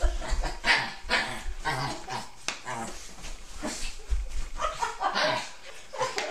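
A small dog barking repeatedly in short barks, about two a second.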